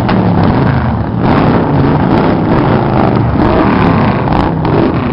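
A group of cruiser motorcycles riding past, their engines running loud and steady, with the sound swelling and easing as bikes go by.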